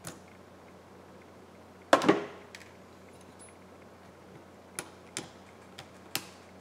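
Small metal tools, tweezers and a pry tool, clicking and tapping against an opened iPhone's frame and connectors, with one louder clatter about two seconds in and a few lighter clicks near the end.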